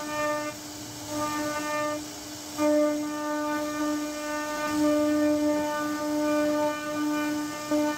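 CNC router spindle whining at a steady high pitch as its bit carves a wooden door panel; the whine drops out twice briefly in the first couple of seconds, then holds.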